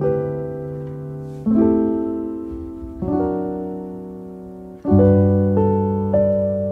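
Solo piano background music: slow chords struck about every one and a half seconds, each ringing and fading away, with quicker notes coming in about five seconds in.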